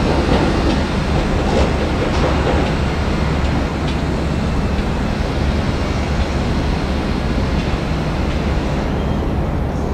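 Freight train rolling past close by: a steady rumble of wheels on rails, with a few faint clicks.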